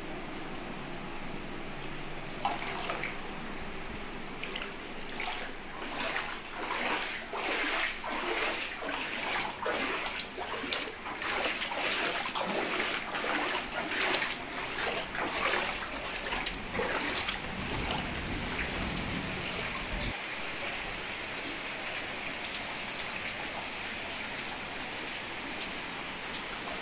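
Footsteps wading through shallow floodwater covering a house floor, splashing about one and a half times a second for some ten seconds. After that comes a steady hiss of water.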